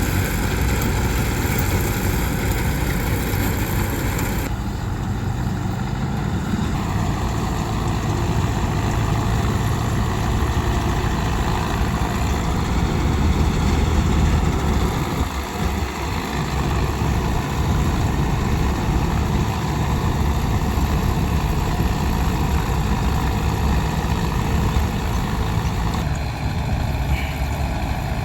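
Heavy diesel engine of farm machinery running steadily, its sound shifting slightly about four seconds in.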